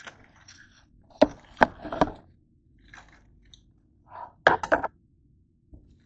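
Onions and their dry, papery skins crackling and knocking on a cutting board as they are handled and peeled: three sharp crunches a little after a second in, then a quick cluster of them near the end, with softer rustling between.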